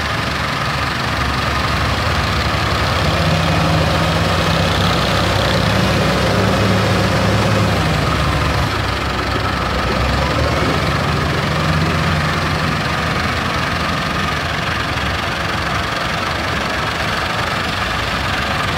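Diesel engines running steadily: a Doosan wheel loader working a sand heap, with a Massey Ferguson 385 tractor running close by. The engine note swells and eases a few times as the loader works.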